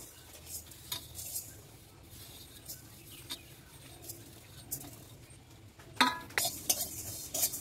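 Whole spice seeds (cumin, coriander, fennel, mustard, fenugreek) poured from a metal plate into a dry metal kadai for dry-roasting, making light scattered ticks. About six seconds in a sharp metallic clink rings out, followed by quick clinks and scraping of a spatula against the pan.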